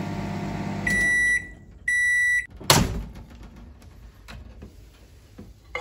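Microwave oven running with a steady hum that stops about a second in, then two long beeps marking the end of the heating cycle. Right after, the door is released with a loud clunk, and a few faint clicks follow.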